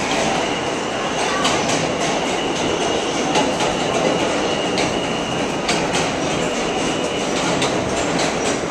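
New York subway car on the N line running at speed, heard from inside the car: a steady rumble of wheels on rail with a few sharp clicks over rail joints, and a thin high whine through most of it.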